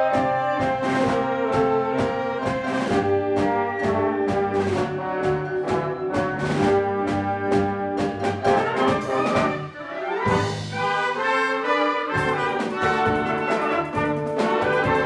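Wind orchestra playing, brass in front over a steady percussion beat; about ten seconds in the band thins out to held notes, then the full ensemble comes back in about two seconds later.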